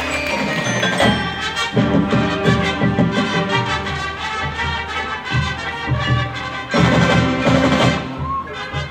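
Marching band playing its field show, with front-ensemble mallet percussion standing out and a percussion strike about a second in.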